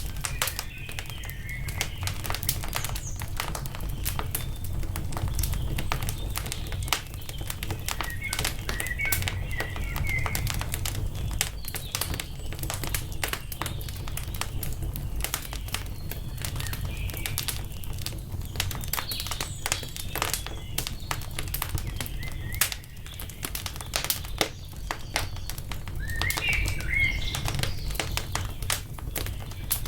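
Wood fire crackling, with dense sharp pops and snaps over a low steady rumble. Small birds chirp briefly a handful of times over it.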